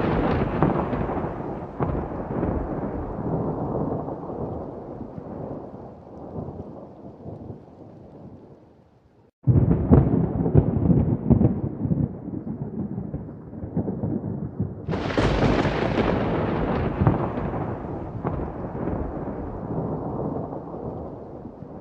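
Thunder: a rolling rumble fading away, then a sudden crack about nine and a half seconds in and another about fifteen seconds in, each trailing off into a long, slowly dying rumble.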